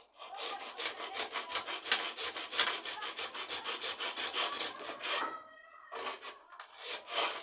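Bare hacksaw blade, worked by hand without its frame, sawing through a refrigerator's refrigerant tube at the compressor: quick back-and-forth rasping strokes for about five seconds, then two short bursts near the end. The blade is new and coarse-cutting.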